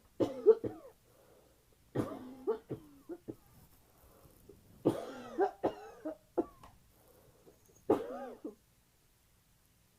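A person with a cold coughing in four fits, each a quick run of two to five harsh coughs, a second or two apart. It is a painful cough.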